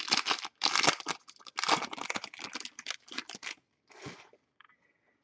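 Crinkling and tearing of a trading card pack's wrapper as it is torn open, in a run of rustling bursts lasting about three and a half seconds, then one more short rustle.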